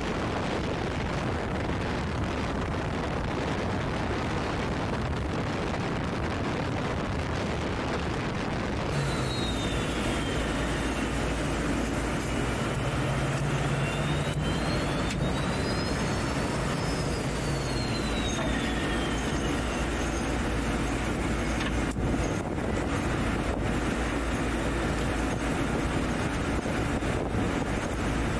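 Mark VI patrol boat's engines running steadily under way, with wind and rushing water noise. About nine seconds in, the sound changes to a steadier low engine drone with faint high tones gliding up and down.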